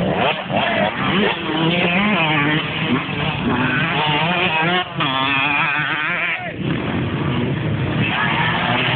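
Dirt bike engines revving hard under load, their pitch rising and falling unevenly as the riders climb a steep dirt bank, with several bikes overlapping. The sound dips briefly about five seconds in and again about six and a half seconds in.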